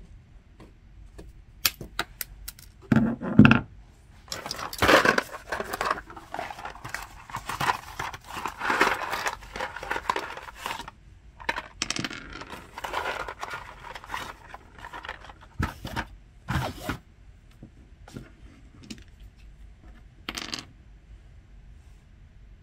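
Klein wire strippers clicking and knocking as an old aluminum wire is cut back, followed by long stretches of scraping and metallic clinking from handled hand tools.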